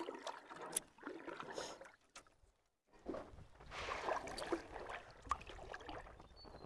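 Water splashing and dripping as a fishing net is pulled up out of a stream by hand, in uneven bursts with a short pause about two seconds in.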